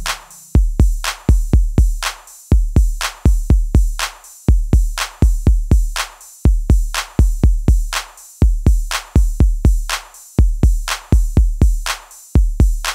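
Electronic background music: a sparse drum-machine beat of deep bass kicks and sharp hits, with no melody.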